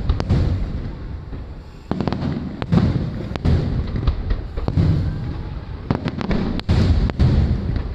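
Aerial fireworks shells bursting in a rapid series of deep booms and sharp cracks, each with a rolling echo, coming in volleys with brief lulls between them.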